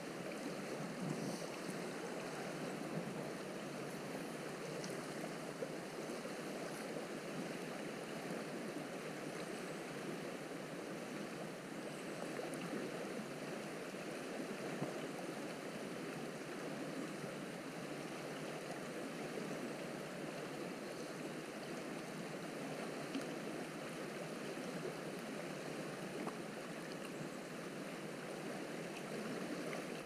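Steady rushing of river water flowing past.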